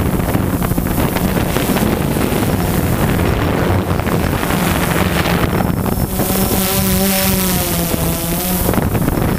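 DJI Phantom 2 quadcopter's motors and propellers humming steadily, with wind on the microphone. About six seconds in, a higher wavering whine joins for a couple of seconds and then cuts off.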